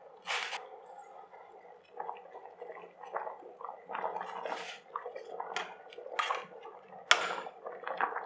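Potato wedges dropping into a steel pot of boiling water and a metal spoon stirring them: irregular splashes and clinks against the pot, the sharpest about seven seconds in, over the bubbling of the water.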